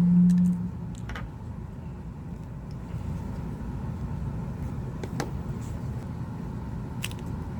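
A few faint clicks from a plastic guitar pick prying around the edge of an iPhone XS screen, freeing it from the frame, over a steady low background rumble. A short low hum comes right at the start.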